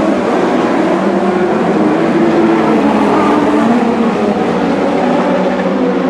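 Several Lightning Sprint race cars' engines running together on a dirt speedway, their overlapping pitches rising and falling as the cars lap.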